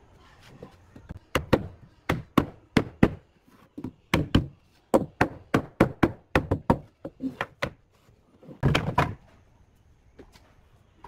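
A wooden block knocking against a freshly glued wooden frame to drive its joints home: a run of sharp wooden knocks, about one to three a second, with a longer, louder clatter of wood on the table near the end.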